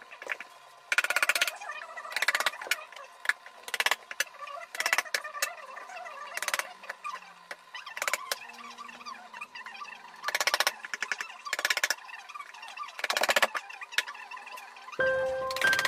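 Upholstery staple gun fired in about eight short rapid bursts, with a pause in the middle, as fabric is stapled to a sofa back. Music with chiming mallet tones comes in near the end.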